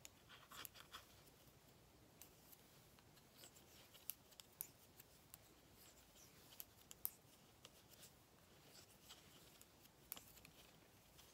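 Faint, irregular clicks and light scrapes of knitting needles working cotton yarn as stitches are purled and knitted, with a short cluster of ticks about half a second in and the loudest click about seven seconds in.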